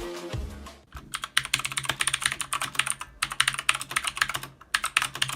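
Fast typing on an AUKEY KM-G6 mechanical keyboard with clicky Outemu Blue switches, each keystroke a sharp click, with a couple of brief pauses. Music fades out just before the typing starts, about a second in.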